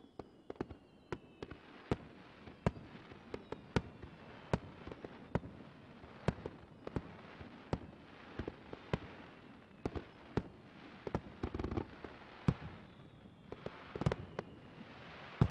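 Fireworks display: a steady run of sharp bangs from bursting aerial shells, about one or two a second, over a continuous crackle. Faint falling whistles can be heard near the start and again near the end.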